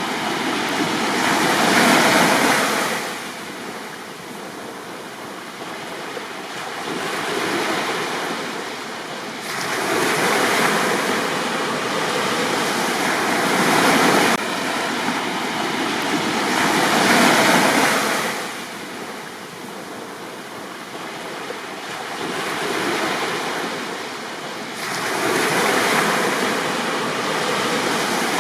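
Sea waves breaking on a beach and washing back, rising and falling about four times, every several seconds.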